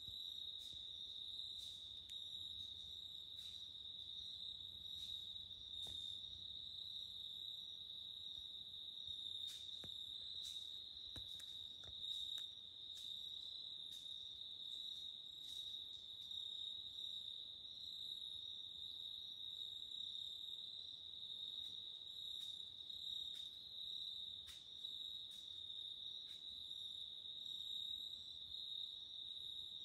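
Crickets trilling in a steady, continuous high-pitched chorus, with faint scattered clicks.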